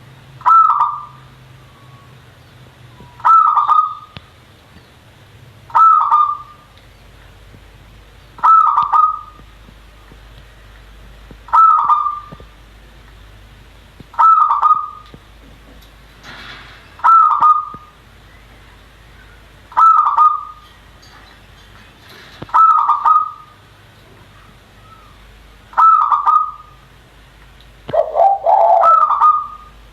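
Peafowl calling loudly, a short honking call repeated about every three seconds, eleven times; the last call, near the end, is longer and rougher.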